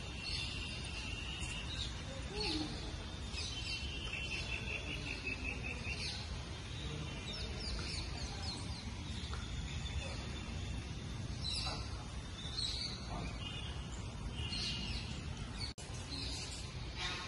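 Small birds chirping and twittering over and over, some calls coming as quick trills, over a steady low rumble.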